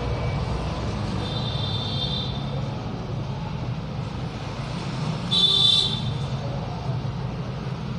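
Steady low road-traffic rumble with two vehicle horn toots, a fainter one about a second in and a louder, shorter one past the middle.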